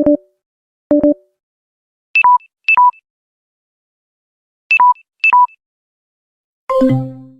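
Mobile phone low-battery warning tones: short electronic beeps. Two low double-beeps a second apart, then two pairs of falling two-note beeps (a high blip dropping to a lower tone), and near the end a fuller, deeper chime of several tones begins.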